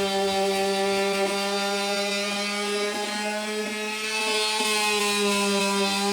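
Electric power sander running steadily while sanding paint off wood, a constant motor hum that dips a little in loudness about halfway through.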